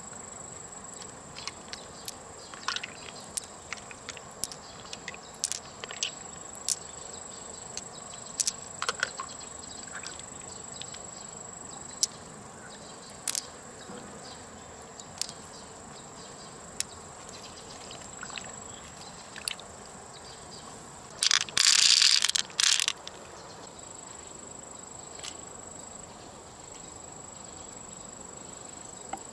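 A steady high insect drone, with scattered sharp clicks of pearls knocking together and against shell as they are picked out of freshwater mussels into a palm. There is a louder burst of rattling clicks a little over 20 seconds in.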